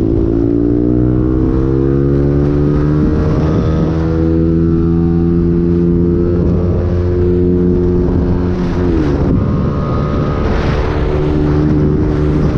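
Engine of a moving road vehicle running at a steady pitch, with its note dipping briefly and settling again about nine seconds in.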